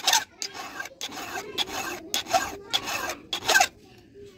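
Flat file scraping across the depth gauges of a Stihl MS382 saw chain, about two strokes a second, lowering the rakers; the strokes stop near the end.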